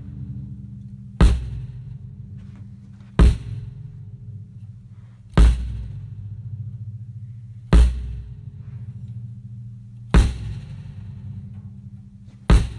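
Background music: a heavy drum hit about every two seconds over sustained low notes.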